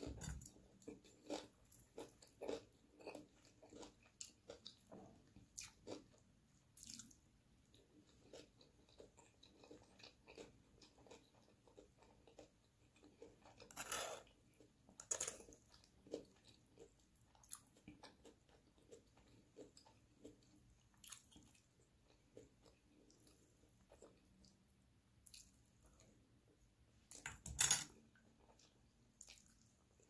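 Close-miked eating sounds of a meal of sausage, rice and cucumber: wet chewing and biting with scattered crunches, the loudest about 14 seconds in and again near the end.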